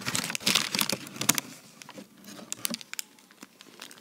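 Plastic candy wrappers crinkling and rustling as they are handled close to the microphone, with small knocks and rubs from the recording device being moved. Busiest in the first second and a half, then fainter scattered crackles.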